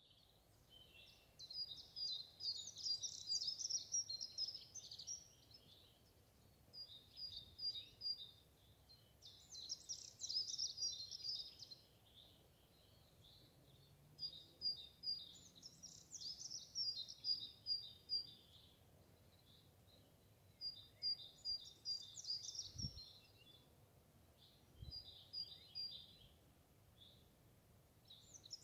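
A small songbird singing high, quick song phrases of two to four seconds each, repeated every few seconds, some opening with a run of identical short notes.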